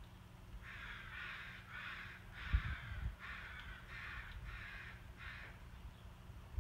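A bird cawing, a run of about seven harsh calls in a row, with a couple of low thumps in the middle.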